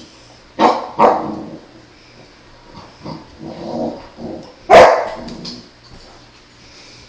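St Bernard puppies barking in play: two loud barks about half a second apart near the start, softer noises a couple of seconds later, then a single loudest bark about two-thirds of the way through.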